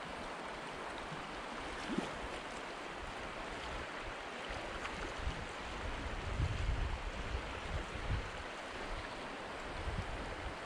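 Steady rush of a creek's shallow riffle water flowing, with a few faint low rumbles underneath.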